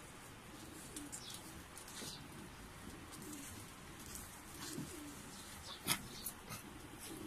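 Soft, low cooing animal calls, each short and recurring every second or so, over light rustling. A sharp click or knock comes just before six seconds in.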